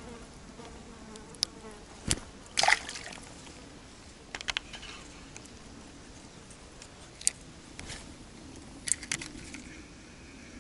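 A steady buzzing hum with a wavering pitch, broken by several sharp clicks and taps, the loudest about two and a half seconds in.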